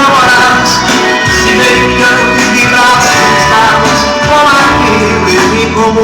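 Loud music with a singing voice, strong bass and guitar, in a Latin American country style, played over a car sound system.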